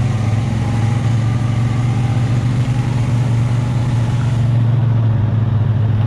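ATV engine running steadily at an even, low pitch, recorded on board the quad as it rides along a muddy, puddled trail.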